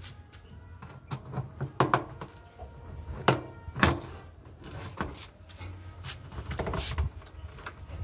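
Irregular knocks, taps and clicks of hands working on a front-loading washing machine's outer tub and rubber door boot seal. The sharpest knocks come about three to four seconds in and again near seven seconds.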